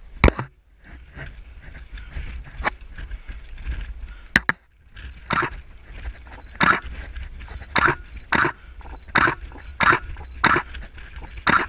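A person breathing hard in short, audible breaths about once a second, starting about five seconds in, over a steady low rumble of wind on the microphone. A sharp click comes a little before the breathing starts.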